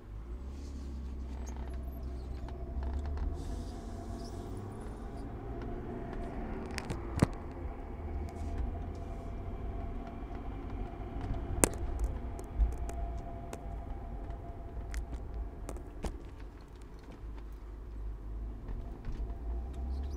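BMW E36 325i driving, with a steady low rumble and a faint high steady whistling tone over it, plus a few sharp clicks. The owner describes it as a metallic scraping whistle from the passenger side, with a passenger-side brake rotor that is a little tight at one point of its turn.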